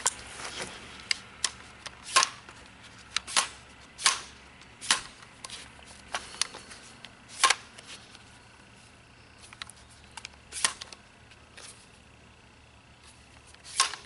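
Irregular sharp clicks and clacks from a Smith & Wesson M&P15 AR-15-style rifle being handled, its metal and polymer parts knocking and shifting in the hands, a dozen or more in all with the loudest at about two, four, five and seven and a half seconds in and again at the end.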